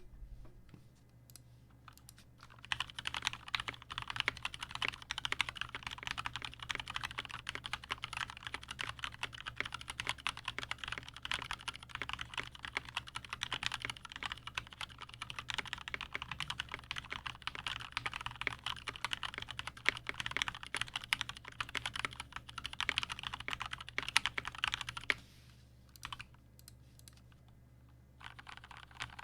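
Custom mechanical keyboard typed on quickly and continuously: lubed and filmed Gateron Milky Black linear switches with 65 g springs, on an aluminium plate in an acrylic Tofu60 case with no foam inside, under enjoyPBT keycaps. The typing starts about two and a half seconds in, stops a few seconds before the end, and picks up again briefly near the end.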